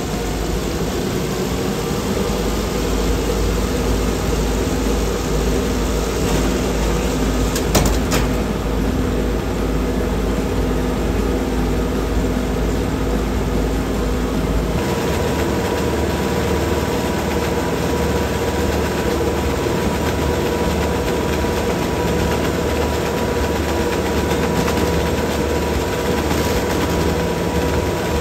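A running treadmill's motor and belt, with the electric motors of Lego Technic cars whirring on the belt: a loud, steady mechanical hum. A short clatter comes about eight seconds in, and the hum changes pitch about fifteen seconds in.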